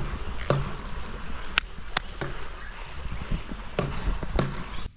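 Shallow stream running over gravel, a steady rush of water, with irregular thumps and clicks of splashing over it. It cuts off suddenly near the end.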